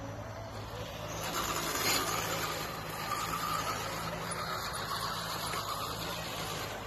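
Electric motors and gearboxes of RC crawler trucks whining as they drive. The whine comes in about a second in and fades out near the end.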